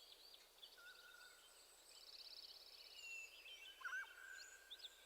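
Faint birdsong: several birds chirping and whistling high up, with a short fast trill about two seconds in.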